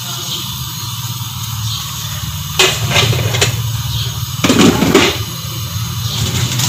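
Kitchen utensils clattering against a steel cooking pot: a few quick knocks about two and a half to three and a half seconds in, then a louder clatter around four and a half seconds in, over a steady low hum.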